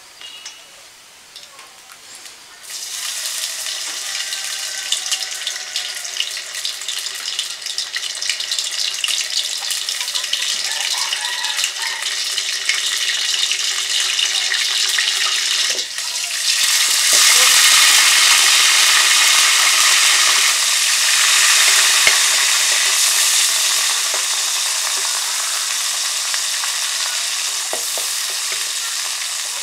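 Spice paste dropped into hot mustard oil, which starts sizzling suddenly about three seconds in and keeps frying. The sizzle gets louder a little past halfway, while the paste is being stirred.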